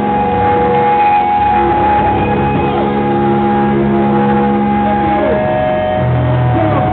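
Live rock band playing loud: electric guitar and drums, with long held notes and several sliding pitches over a dense, continuous wash of sound.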